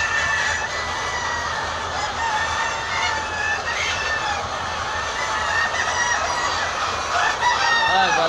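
A large flock of laying hens clucking and cackling together: a steady din of many overlapping calls, with one louder call standing out near the end.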